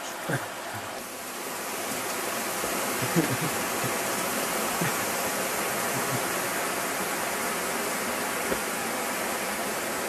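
Rushing water of a fast-flowing river or waterfall, a steady hiss that grows louder about a second and a half in and then holds.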